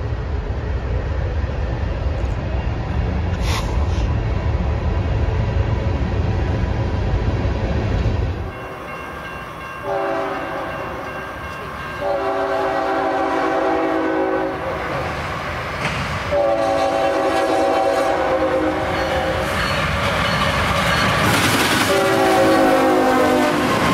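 A low, steady train rumble, then after a cut a CSX freight locomotive's air horn sounding four long blasts as it approaches at speed. The last blast bends in pitch as the locomotive passes, over the rising rush of the train.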